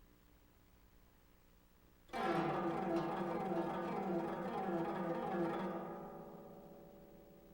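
Koto, the Japanese long zither, played solo: after a faint fading note, a sudden loud flurry of plucked strings about two seconds in, quick sweeping runs of notes that ring on and die away near the end.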